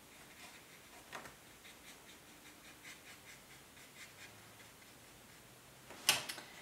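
Fine paintbrush dabbing and stroking on watercolor paper: faint, scattered soft scratches and ticks, a sharper tick about a second in, and one louder sharp knock near the end.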